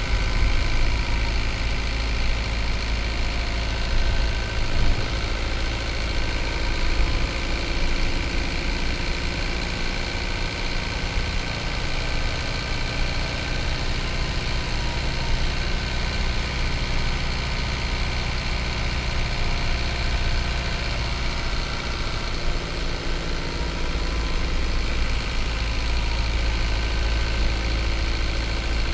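Hino Liesse bus's 4,728 cc J05D four-cylinder diesel engine running steadily: an even, low drone with only slight shifts in pitch.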